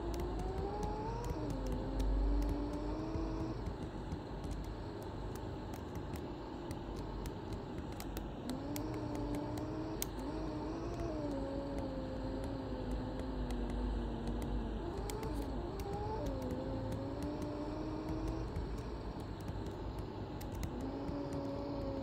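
Mercedes-Benz OC500LE bus running: a low engine rumble with a drivetrain whine that rises and falls in pitch several times as the bus speeds up and eases off, and light rattling clicks throughout.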